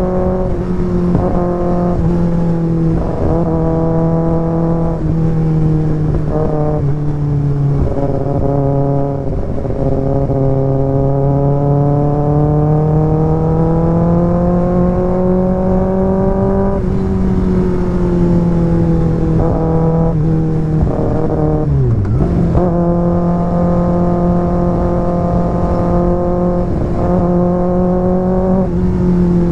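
Kawasaki ZX6R's inline-four engine through an IXIL aftermarket exhaust while riding. The engine note drops several times in the first ten seconds, climbs slowly for several seconds after that, then dips sharply and briefly about 22 seconds in before settling at a steady pitch.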